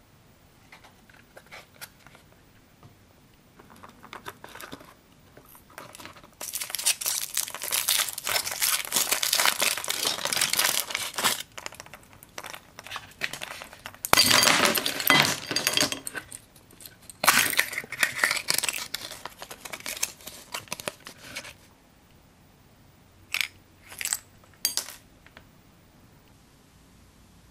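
Foil and packaging crinkling loudly as a chocolate surprise egg is unwrapped, in several long stretches with short breaks. Near the end come three short sharp clicks as the small plastic capsule from inside the egg is handled and opened.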